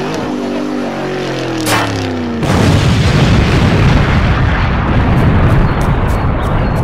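A pitched sound falling in pitch, then about two and a half seconds in a sudden loud boom that goes on as a dense, rumbling noise.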